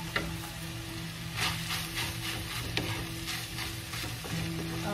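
A wooden spoon stirring and scraping ground beef and carrot filling around a nonstick frying pan in a run of quick strokes, over the sizzle of the hot pan. A steady low hum runs underneath.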